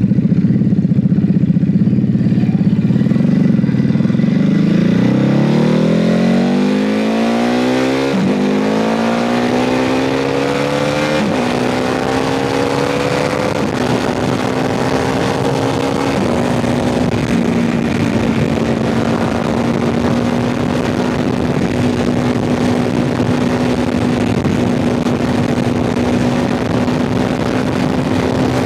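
Motorcycle with a Mivv aftermarket exhaust accelerating hard through the gears. The engine note climbs and drops back at four upshifts in the first half, then holds a steady pitch while cruising.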